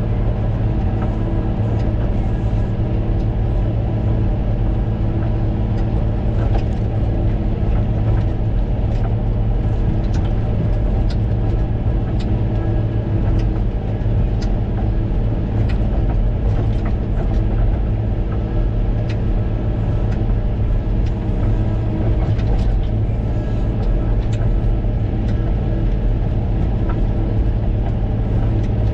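Caterpillar motor grader's diesel engine running steadily while working, heard from inside the cab, with light ticks and rattles scattered through it.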